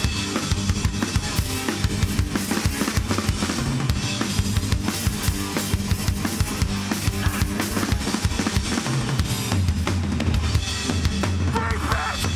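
Hardcore band playing live at full volume: distorted electric guitars, bass and a pounding drum kit, with no vocals heard.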